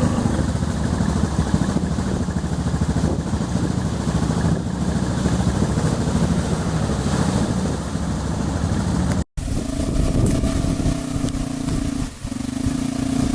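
Yamaha Rhino side-by-side engine running under way on a rough dirt road. After a brief cut about nine seconds in, the engine settles into a steadier, even hum.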